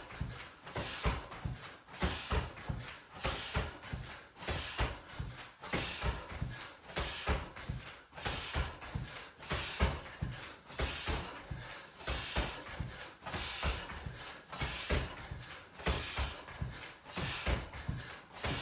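Repeated jumps with feet landing on a rubber gym floor about once a second, with hard breathing between landings.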